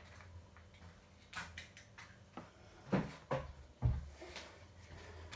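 A few soft knocks and clicks from things being handled in a kitchen, with a duller thump a little before four seconds in.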